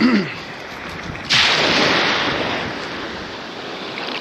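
A small wave breaking at the edge of the sea: a sudden hiss of surf a little over a second in that slowly fades as the water washes up the beach, after a brief low voice sound at the start.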